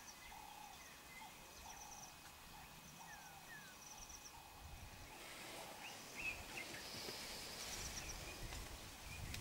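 Quiet bush ambience with small birds calling in short repeated chirps and trills. A low rumble builds about halfway through.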